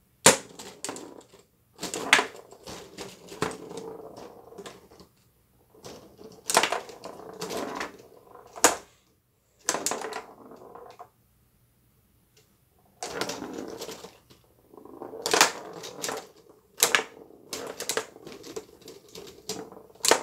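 Foosball table in play: sharp clacks of the plastic players and rods striking the ball and the table, in rapid flurries with short lulls between rallies.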